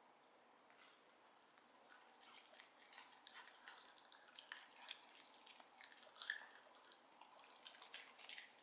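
A small Shiba Inu eating dried sweet potato from a hand: faint, wet chewing and lip-smacking clicks, starting about a second in and going on irregularly.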